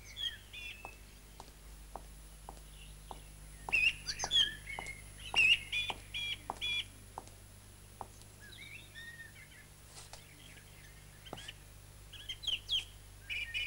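Small birds chirping and twittering in short bursts, over a faint, steady ticking about twice a second.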